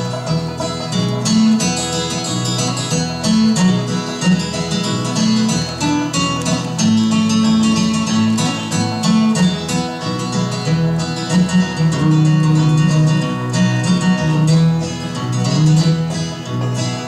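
Live bluegrass-style gospel band playing an instrumental break between verses: picked acoustic guitar and other plucked strings over a bass line.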